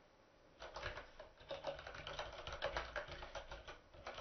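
Computer keyboard typing: a quick run of key clicks that starts about half a second in and goes on with brief pauses.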